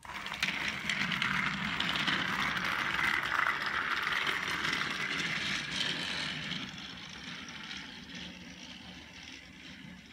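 Battery-powered toy train engine switched on, its small electric motor whirring and gears rattling steadily as it runs along plastic track. The whir grows quieter after about six seconds.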